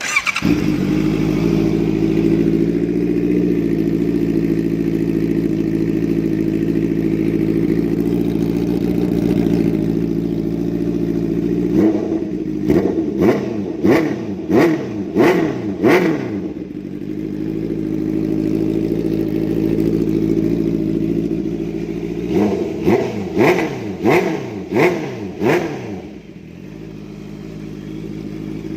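Loud Honda CBR650F inline-four breathing through a small 150cc bike's exhaust: it starts and idles steadily, then is revved in two sets of quick blips, about six then about five, settling back to idle between and after.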